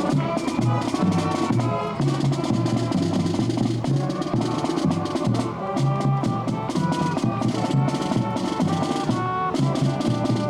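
Music with a steady drum beat under held melody notes.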